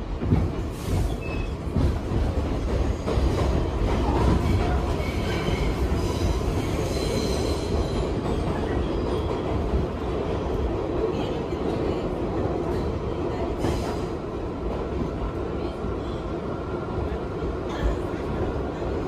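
New York City subway car pulling out of a station and running through the tunnel: a steady low rumble of wheels on rail with clickety-clack, and a high squeal from about five to eight seconds in.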